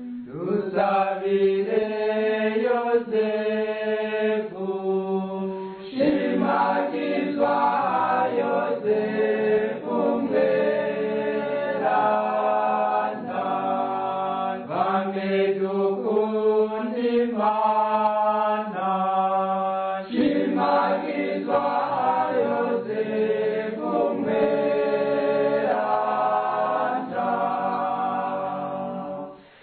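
Choir singing a Catholic hymn to Saint Joseph in Kirundi, several voices together on long held notes. The singing breaks off for a moment just before the end, then resumes.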